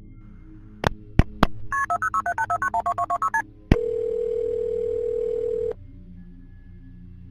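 Telephone sounds: three sharp handset clicks, then a quick run of about a dozen touch-tone keypad beeps as a number is dialled. After another click comes one steady ringback tone of about two seconds as the line rings.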